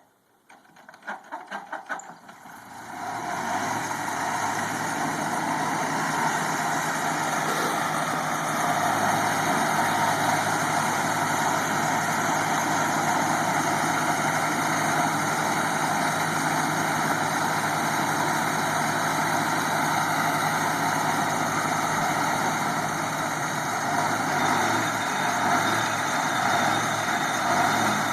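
The engine of a 1940s Longyear core drill turns over and catches within about three seconds, then runs steadily.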